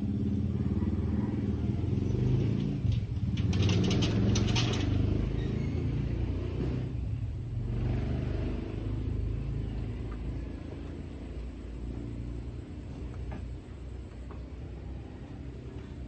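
A motor vehicle's engine running close by, loudest in the first few seconds and then gradually fading away, with a brief hiss about four seconds in.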